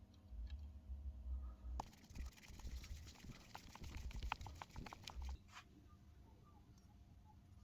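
Hand-handling noises: a run of small sharp clicks and ticks over low bumps and knocks for about five seconds, stopping about two-thirds of the way in.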